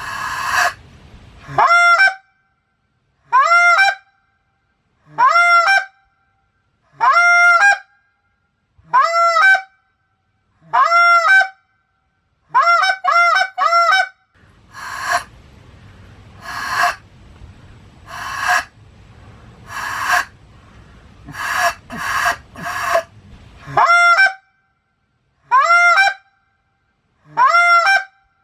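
A goose call blown in a series of honks, each cracking from a short low note up into a high arching note, spaced about two seconds apart, with a quick run of four honks about halfway through. For roughly ten seconds after that run, and at the very start, the honks give way to breathy rushes of air at the same pace.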